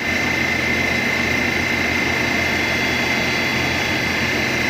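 Breakfast cereal production line machinery running steadily: a constant low hum under a high, steady whine.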